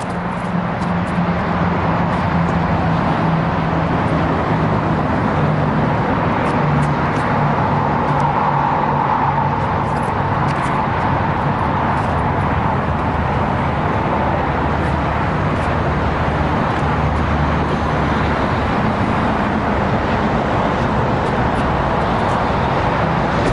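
Steady motor vehicle noise: a low engine hum over a constant rush of sound, unchanging in level.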